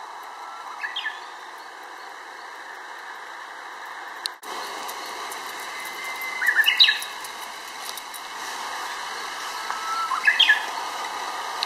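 Japanese bush warbler (uguisu) singing its 'hoo-hokekyo' song three times: each phrase a held whistle followed by a quick run of higher notes, the second the loudest.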